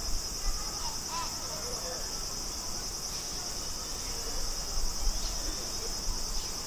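Steady high-pitched insect chorus shrilling without a break.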